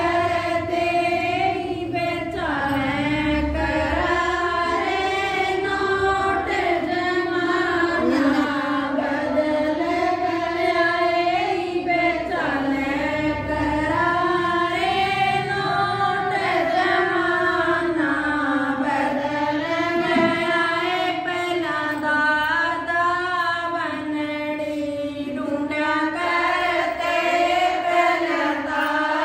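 A group of women singing a devotional bhajan together in unison, one continuous flowing melody.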